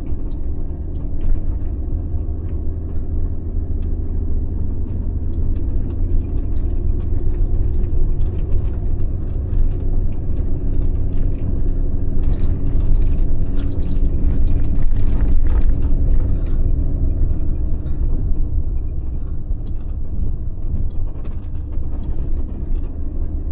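Ram ProMaster camper van driving slowly on a rough unpaved road: steady engine hum and low rumble from the tyres, with scattered clicks and rattles.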